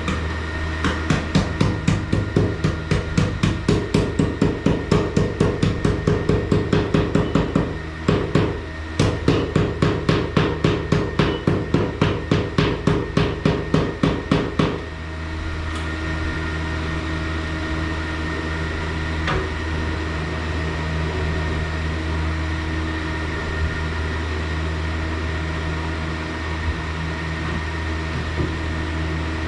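A tool worked in fast, regular strokes, about three a second, with a short break partway, stopping suddenly about halfway through. After that only a steady hum remains.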